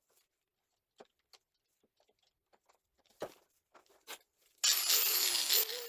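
Light clicks and taps of small parts being handled, then about four and a half seconds in an electric power tool motor starts up loudly with a high rising whine that climbs twice, and begins to wind down near the end.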